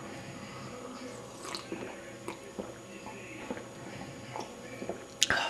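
A person sipping water from a cup, with small wet mouth and swallowing sounds over a faint steady hum. A sharper click comes just before the end.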